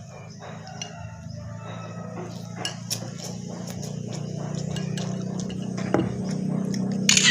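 Cutlery clinking against a bowl while eating instant noodle soup, in scattered short clicks with a louder clatter near the end, over a steady low hum.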